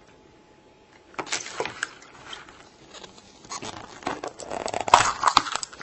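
Hands opening a plastic surprise egg and its wrapping: irregular rustling and crinkling of plastic with sharp clicks. It starts about a second in and is loudest around five seconds in.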